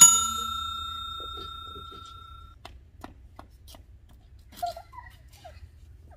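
Notification-bell 'ding' sound effect from a subscribe-button animation: one bright bell strike that rings out and fades over about two and a half seconds. After it come faint scattered clicks.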